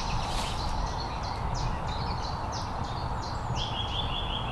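Songbirds calling outdoors: a string of short high chirps, then a quick trill of repeated notes about three and a half seconds in, over a steady low background rumble.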